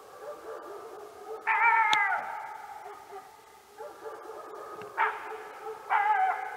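Canine howling and yelping. A loud, wavering, falling howl comes about a second and a half in, a short yelp near five seconds, and another wavering call starts about six seconds in.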